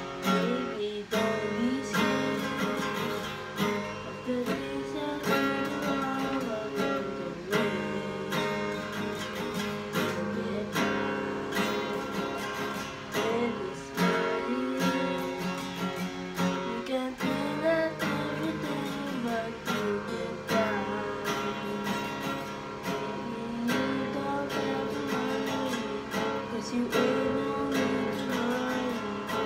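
Acoustic guitar strummed in a steady rhythm through a chord progression, played as the accompaniment to a song.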